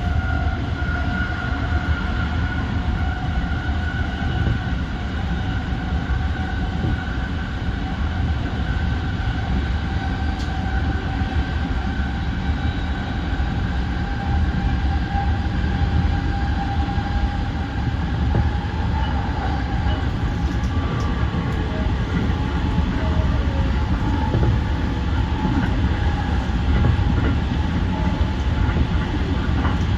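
E235-series electric train running at speed, heard from inside the car: a steady low rumble of wheels on rail with a high motor whine that fades out about two-thirds of the way through.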